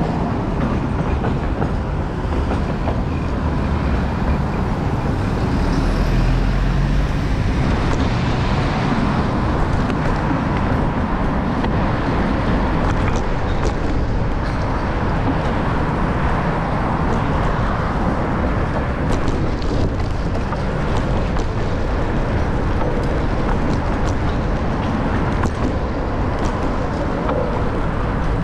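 Steady rush of street traffic and wind noise, heard from a moving bicycle, without a break.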